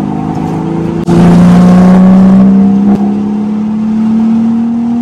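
BMW Z4 3.0's straight-six engine pulling hard through the gears, heard from inside the cabin. About a second in it suddenly gets louder at a lower pitch, then the engine note climbs steadily as the revs rise, with a brief dip near three seconds.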